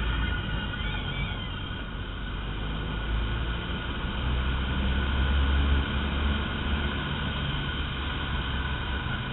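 Inside a Cessna 152 cockpit during a spin: the stall warning horn wails steadily over the rumble of the Lycoming four-cylinder engine, propeller and wind. The rumble grows louder about halfway through as the aircraft recovers from the spin.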